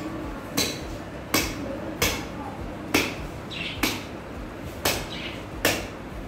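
Meat cleaver chopping through a rack of ribs from a sacrificial animal's carcass on a wooden block, in regular hard strikes about one every 0.8 seconds, eight in all.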